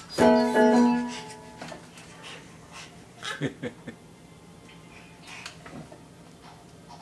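Electronic keyboard struck with a baby's hand, several keys at once, sounding a loud clashing chord just after the start that rings for about a second and fades. A few short baby vocal sounds follow about halfway through.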